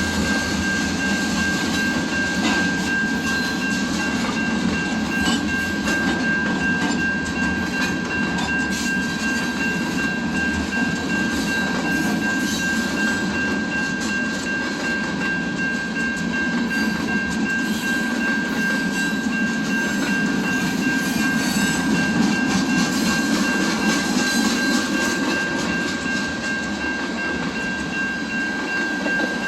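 A train rolling past at close range: a steady rumble of wheels on rail with scattered clicks, and a steady high-pitched tone.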